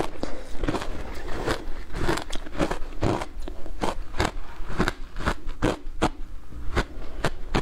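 Crunching and chewing of shaved ice soaked in passion fruit pulp: a quick, irregular run of sharp cracks as the ice breaks between the teeth, about three a second.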